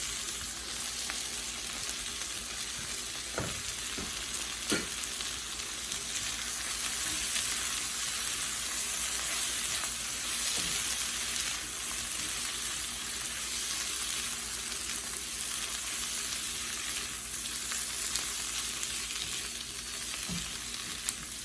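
Eggplant and fried egg sizzling steadily in oil in a frying pan as the mixture is stirred, with a few light knocks of the utensil against the pan.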